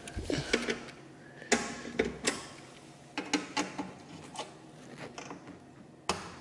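Irregular light clicks and knocks, a dozen or so, the sharpest about one and a half seconds in and just before the end, from a screwdriver being worked into the fastener of an HP 21MX minicomputer's metal front cover.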